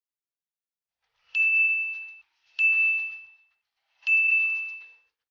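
Subscribe-button animation sound effect: three click-and-ding chimes, one for each press of the like, subscribe and bell buttons, each ringing out briefly at one steady pitch, about a second and a half apart.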